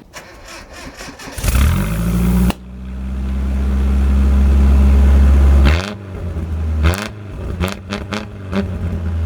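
A straight-piped pickup truck's engine cranks, catches about a second and a half in, and runs at a loud, steady low idle. From about halfway through it is revved several times in short blips.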